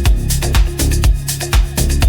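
Afro house dance music: an instrumental stretch with a steady four-on-the-floor kick, deep bassline and crisp hi-hat and percussion hits.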